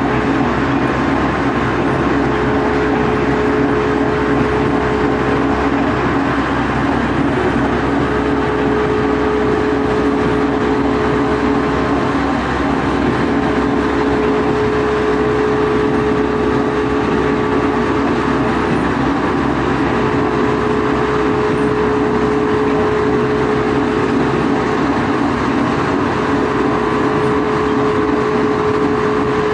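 Coal grinding mill running steadily: a constant, unchanging machine drone with a steady hum held under it.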